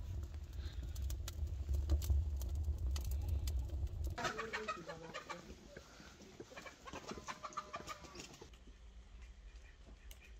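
Wood fire burning inside a tandir oven: a low rumble with scattered crackles. About four seconds in it cuts to chickens clucking for a few seconds.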